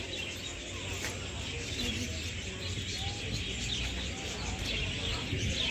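Small birds chirping in quick scattered calls, over a low steady hum.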